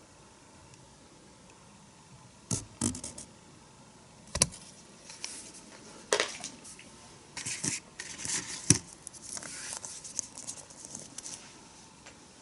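Toy packaging being handled: a wrapper crinkling, with sharp plastic clicks and taps. It starts about two and a half seconds in, comes in irregular bursts and stops shortly before the end.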